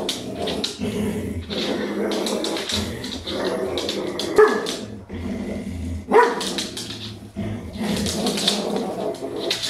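Belgian Malinois growling continuously while tugging on a cloth in play, with two sharp barks about four and a half and six seconds in.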